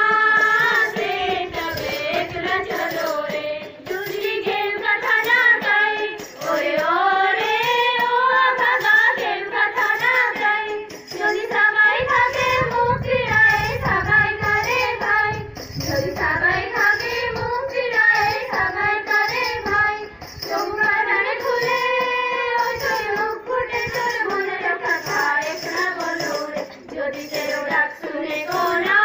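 A group of children singing a song together over a steady beat, phrase after phrase with short breaths between.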